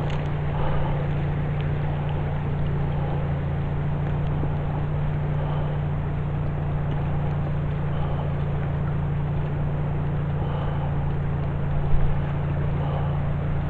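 A steady low mechanical hum, like a running motor, over a continuous rushing hiss, with a brief knock near the end.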